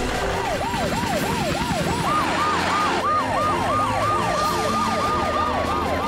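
Animated rescue vehicles' emergency sirens: a fast wailing siren sweeps up and down about three times a second. About two seconds in, a second, higher siren joins and overlaps it.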